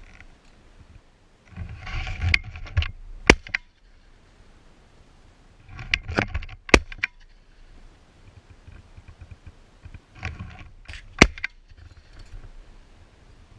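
Three bursts of close rustling and handling noise, each with one or two sharp clicks, about four seconds apart.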